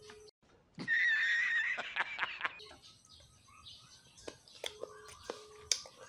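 A single loud, wavering, high animal call lasting under two seconds, then a quiet stretch with scattered clicks and faint short chirps.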